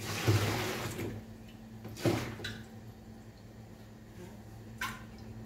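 Kitchen handling noise from pots and utensils: a rustling rush for about a second, then a single sharp knock about two seconds in and a couple of light clicks later.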